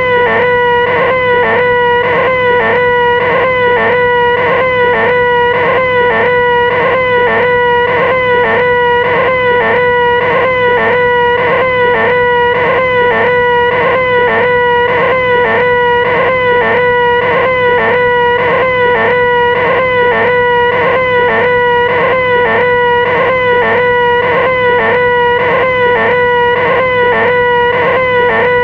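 A person's voice holding one loud, nasal, high-pitched 'eeehhh', the 'most annoying sound in the world' shriek, with a small pitch wobble that repeats evenly.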